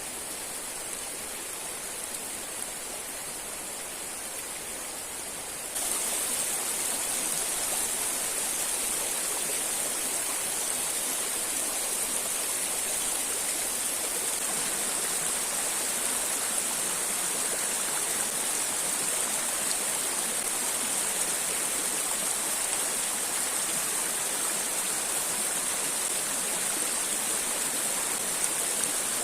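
Rushing water of a river and waterfall, a steady hiss that suddenly gets louder about six seconds in.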